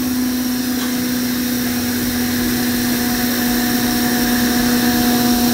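Steam hissing steadily out of an electric pressure cooker's release valve during a quick pressure release, with a steady low hum underneath.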